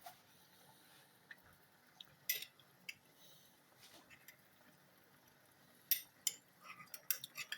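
Scattered light clinks and taps of kitchen utensils against dishes, with a quick cluster of clicks near the end.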